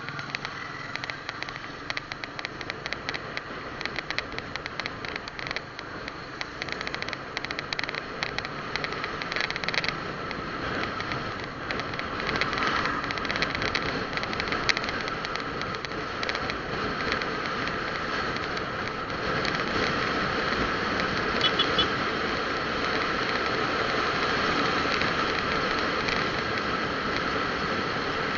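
Engine and road noise from a vehicle driving in traffic, steady throughout, with crackling wind or handling noise on the microphone during the first several seconds.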